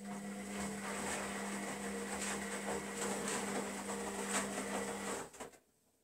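Zanussi Lindo300 front-loading washing machine running in its rinse cycle: a steady hum with a dense rushing, crackling noise that fades in, holds for about five seconds, then stops.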